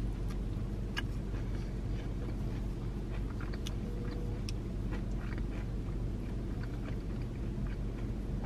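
A person chewing a boneless chicken wing with small wet clicks of the mouth, over a steady low hum in a car's cabin.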